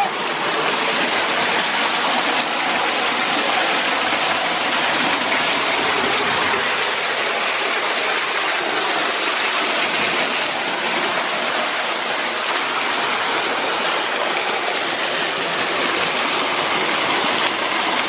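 Waterfall pouring into a shallow pool: a loud, steady rush of falling water.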